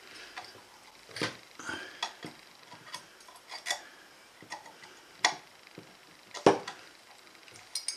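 Irregular light clicks and taps of a small brass telescope tube and a small metal pick being handled, as a paper disc is pressed into the tube's end cap.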